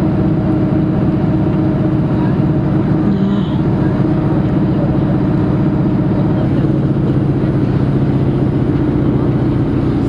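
Bus engine and road noise heard from inside the passenger cabin while driving: a steady low drone with no change in pace.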